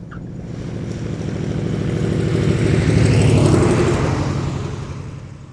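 Propeller-driven aircraft passing by: a buzzing engine-and-propeller drone swells up, is loudest a little past the middle, then fades away.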